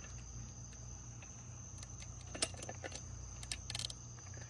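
A few light metallic clicks and a short rattle from the chainsaw's chain and bar being handled, over a steady high chirring of crickets.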